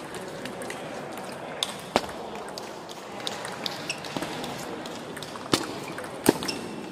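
Table tennis rally: a ping-pong ball clicking off the bats and bouncing on the table at an irregular pace, with louder hits about two seconds in and twice near the end.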